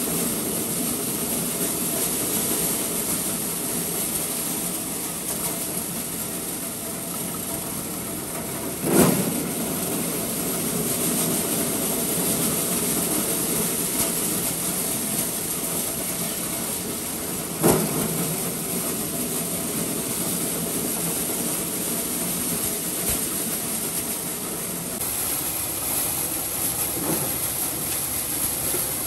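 Tractor-driven maize sheller running steadily as dried cobs are threshed, with two sudden loud knocks, one about a third of the way through and one about two-thirds through.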